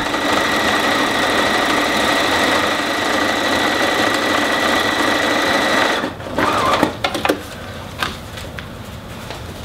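Bernina domestic sewing machine stitching steadily through vinyl-laminated quilting cotton for about six seconds, then stopping. After that, a few soft clicks and rustles as the fabric is handled under the presser foot.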